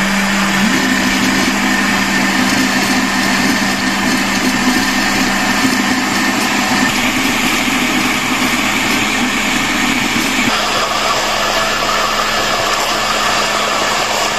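Countertop electric blender running continuously, pureeing a thick tomato-based curry sauce; its tone changes slightly about ten seconds in.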